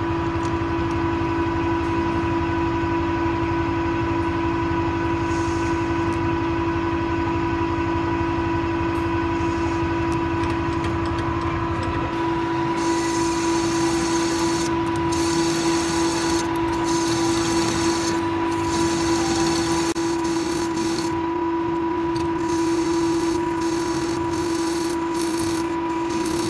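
Metal lathe running with a steady motor whine. From about halfway through, a carbide insert cutting the spinning metal workpiece adds a higher hissing noise that comes and goes in short breaks.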